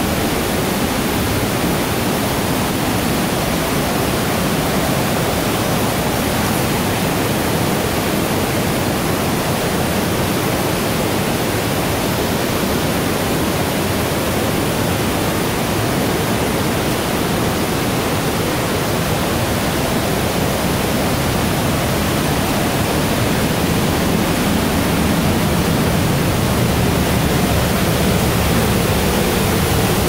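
Steady rush of a waterfall and a mountain stream pouring over rock slabs, growing a little louder near the end.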